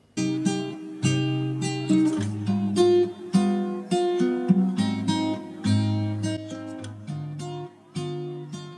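Intro music: an acoustic guitar playing a quick run of plucked notes and strums.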